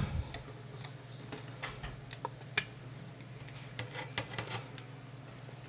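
A few small, sharp clicks and taps of a metal LNB connector being fitted onto a satellite receiver's circuit board, over a steady low hum.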